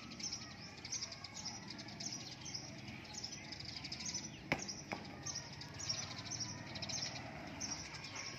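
Small birds chirping over and over in outdoor background ambience, with two sharp clicks about four and a half and five seconds in.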